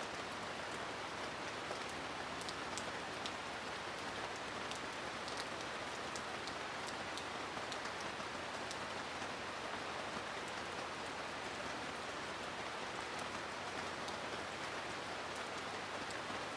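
Steady rainfall with scattered individual drops ticking sharply on a surface.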